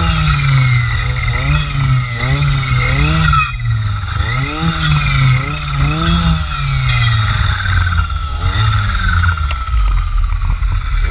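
Two-stroke engine of a Jonsered FC 2256 W clearing saw fitted with a circular blade, running hard and revving up and down over and over, its pitch rising and falling about once or twice a second.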